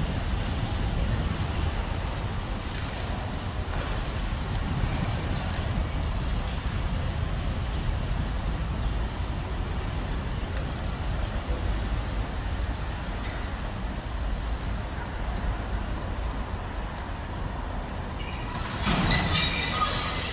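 Soviet-built M62-type diesel locomotive approaching slowly over points, its engine a steady low rumble. About nineteen seconds in, its wheels start squealing on the curved pointwork. Faint bird chirps come through in the first half.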